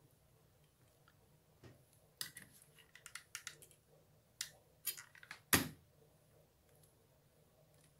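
Craft tools handled on a worktable: a run of light clicks and taps from about two seconds in as a hot glue gun is picked up and used, ending in a louder knock at about five and a half seconds.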